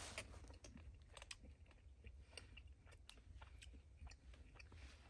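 Faint chewing of a mouthful of bison ribeye steak, with scattered light clicks of a fork and knife on the plate.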